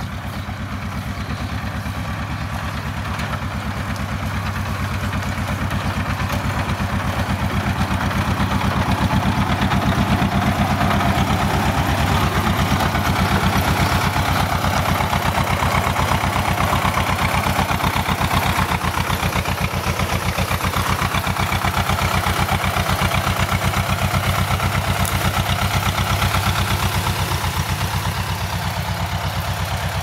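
Tractor engine running with an even, low chugging beat as the tractor drives up; it grows louder over the first several seconds and then runs steadily close by.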